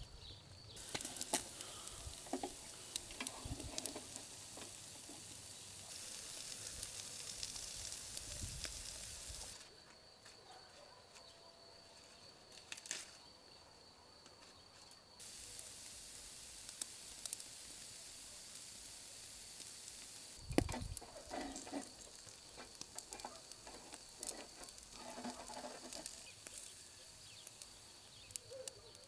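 Food cooking over an open fire: a steady sizzling hiss with sharp crackles, broken by a quieter stretch partway through and a single thump later on.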